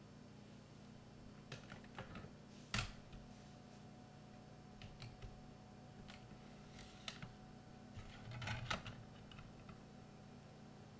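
Faint scattered clicks and rustles, the sharpest about three seconds in, over a steady low hum.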